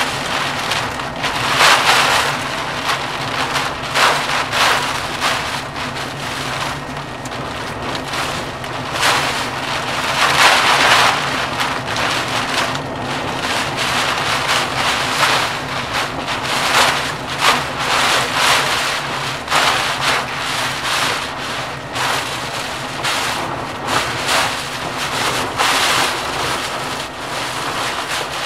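Thunderstorm rain and gusting wind, the noise swelling in surges, strongest about two seconds and ten seconds in, over a steady low hum.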